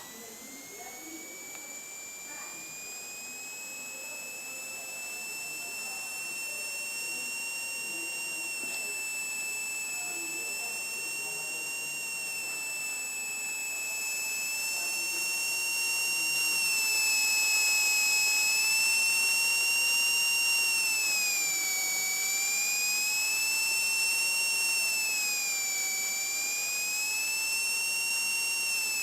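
Cessna 182 Skylane's piston engine during the pre-takeoff run-up, heard through the cockpit audio as a steady high whine. The whine rises in pitch as the engine is brought up at the start, grows gradually louder, and dips in pitch twice near the end as the propeller is cycled.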